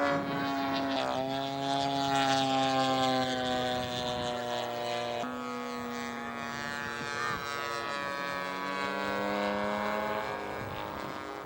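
Engine of a radio-controlled scale model Yak 18 airplane running in flight, a steady propeller drone whose pitch drops in a few steps as it flies past.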